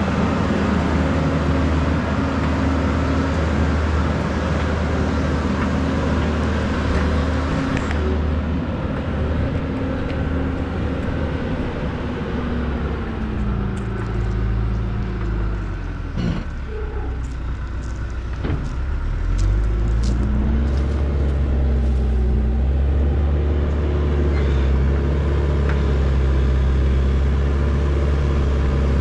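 Backhoe's diesel engine running steadily under work, with a rattly hiss over it for the first several seconds; about halfway through the engine slows to a lower pitch for a few seconds, then revs back up and holds.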